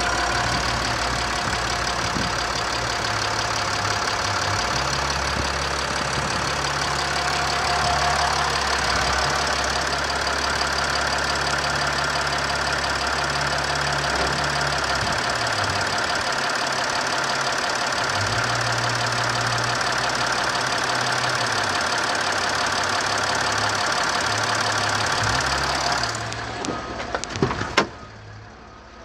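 Nissan Navara D40's 3.0-litre V6 turbo-diesel engine idling steadily, heard up close in the open engine bay. Near the end the engine grows quieter and a few sharp knocks sound.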